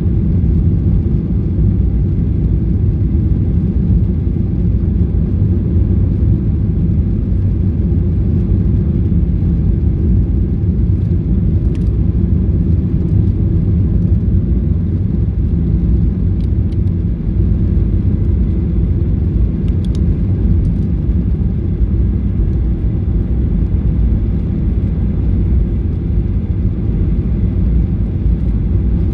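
Steady low rumble inside the cabin of a Boeing 737-800 on final approach, heard from a window seat over the wing: its CFM56-7B engines and the airflow around the wing, with a few faint ticks around the middle.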